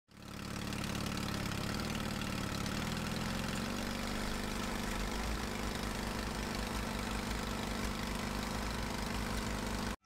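Cat D6 9U bulldozer's diesel engine running steadily, fading in at the start with no revving.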